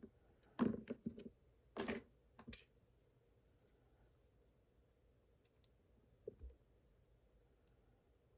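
Light clicks and taps of small lock pins and lock parts being handled during disassembly, a cluster in the first three seconds and one more about six seconds in.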